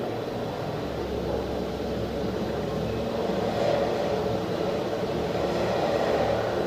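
Elevator car travelling between floors after its doors have closed: a steady low hum and rumble of the cab and its drive, growing slightly louder.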